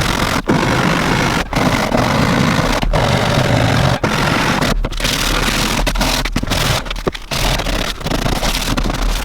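Handheld power tool working into a boat's fibreglass deck, running loud with short breaks about once a second.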